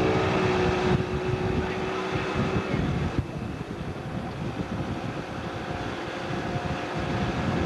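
Motorboat engine running under way, with wind buffeting the microphone. The engine's steady tone fades after about three seconds, leaving mostly wind rush.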